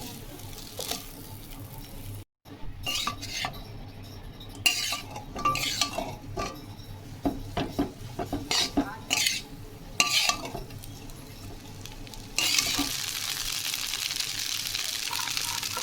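A cooking utensil stirring, scraping and clinking irregularly against a pan of chowmein, then, about twelve seconds in, a steady sizzle of food frying in hot oil takes over.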